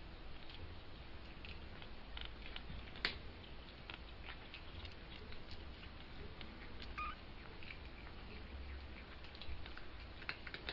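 Soft scratching and light clicks of young kittens, about two weeks old, crawling and pawing about on a fabric blanket. The scratches come irregularly, with one sharper click about three seconds in and a brief faint squeak about seven seconds in.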